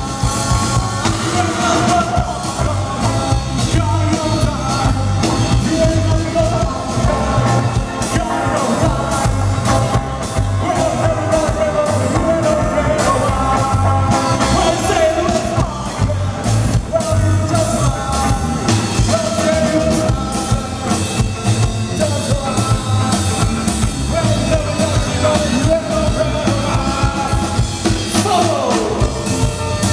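Live rockabilly band playing: a singer over hollow-body electric guitars, upright bass and drum kit, with a steady driving beat. A note slides down in pitch near the end.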